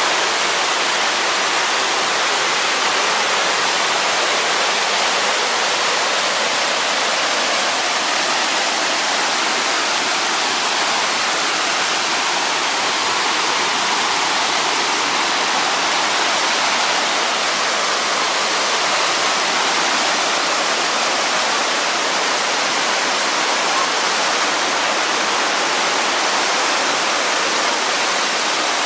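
Mountain stream rushing in white water down a cascade over rock slabs, a steady, unbroken rush of falling water.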